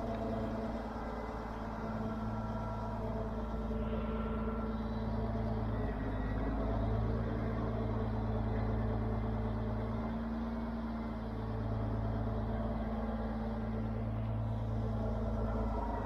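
A large engine running steadily at a constant speed, its level swelling and dipping slightly.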